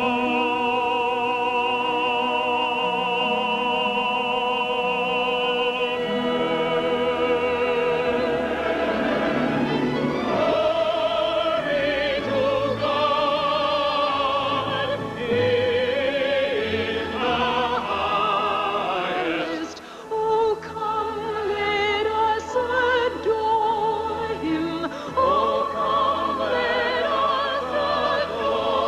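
Operatic singing with orchestral accompaniment, opening on a long held note with vibrato before the melody moves on.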